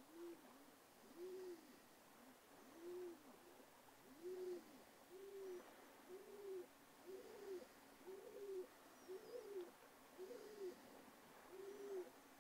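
A bird's faint, low cooing call: about eleven notes, each rising and then falling, repeated roughly once a second.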